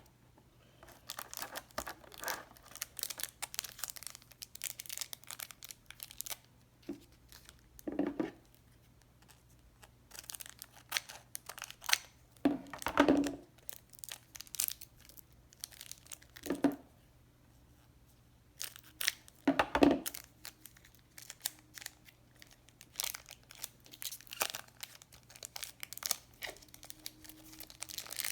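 Pokémon product packaging being torn open and handled: wrapper crinkling and tearing in irregular bursts, with a few louder rustles.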